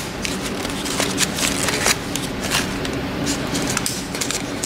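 Newspaper wrapping and the plastic of sawdust spawn bags crinkling and rustling in irregular crackles as hands peel the paper off the bags.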